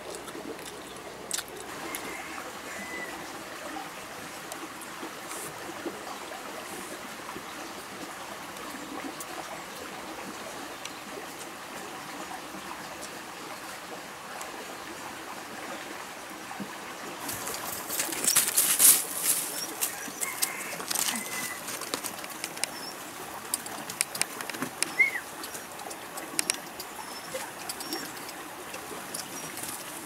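Outdoor ambience of a steady wash of stream water with a bird calling briefly a few times. A cluster of sharp clicks and rustles comes about eighteen to twenty seconds in.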